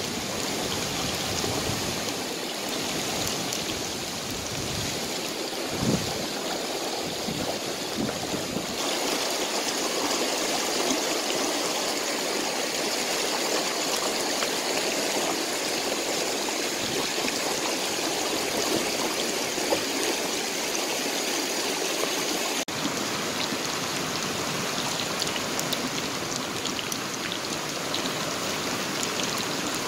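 Shallow river rushing and splashing over rocks, a steady noise throughout.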